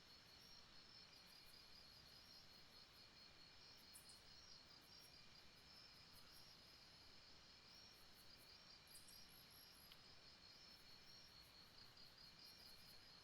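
Faint night-time insect chorus: crickets trilling steadily, with higher, shorter insect calls repeating irregularly above the trill.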